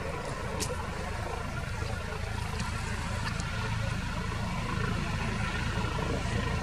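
Airbus H145 helicopter air-taxiing low over a runway: a steady rotor thrum over the hum of its turbines, growing slightly louder.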